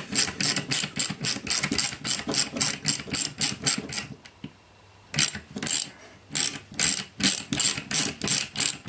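Ratcheting driver clicking in even, rapid strokes as tight screws are backed out of an electronics chassis. The clicks run at about four a second, stop for about a second, then go on more slowly.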